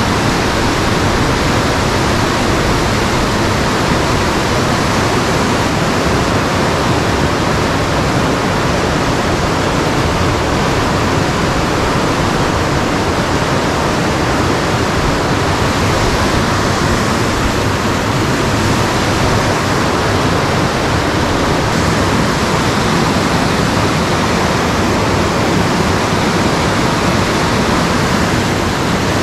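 Loud, steady rush of whitewater: river rapids pouring over rocks.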